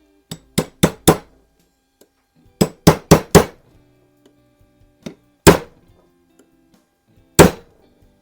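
Small hammer tapping on the metal parts of a Diana model 6 air pistol's trigger mechanism during reassembly. There are two quick runs of four sharp taps, then two single harder taps.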